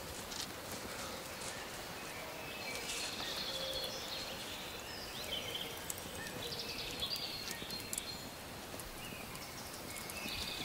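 Outdoor country ambience: birds chirping now and then over a steady hiss, with a few faint clicks.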